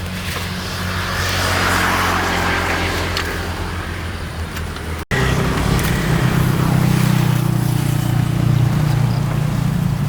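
Kubota RD85 horizontal single-cylinder diesel on a hand tractor running steadily, with a rushing noise over it for the first few seconds. It breaks off suddenly about five seconds in and comes back louder.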